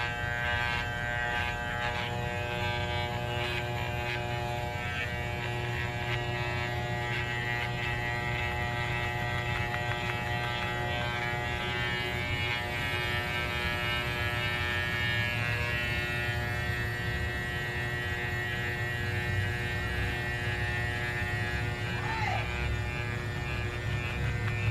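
Electric pet clippers running steadily with a constant buzzing hum as a small dog is shaved.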